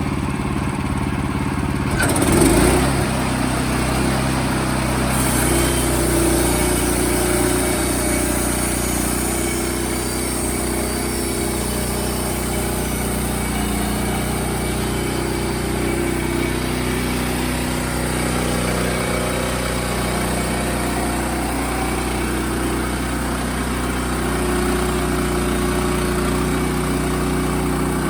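Engine of a portable band sawmill running steadily under load while the blade cuts through a log, with a brief louder knock about two seconds in and a high hiss from the cut from about five seconds on.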